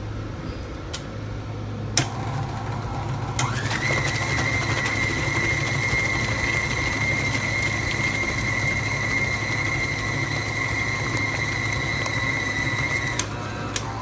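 KitchenAid stand mixer mixing thick zucchini bread batter with its flat beater. After a sharp click about two seconds in, the motor winds up quickly to a steady whine and runs evenly until it is switched off near the end.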